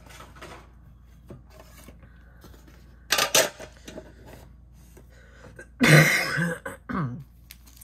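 A person who is sick coughing: one short cough about three seconds in, then a louder run of several coughs near the end.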